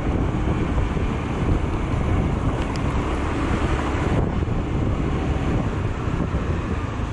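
Wind buffeting the microphone of a moving Honda 125 cc-class scooter, over the scooter's engine and the tyre and road noise.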